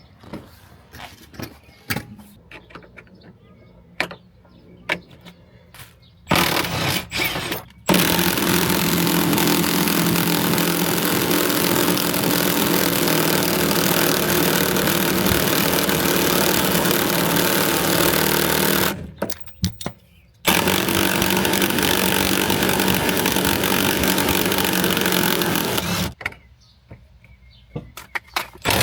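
A power tool running loud and steady in two long runs, one of about eleven seconds and one of about five and a half, with a short break between them. Scattered tool clicks and taps come before and after.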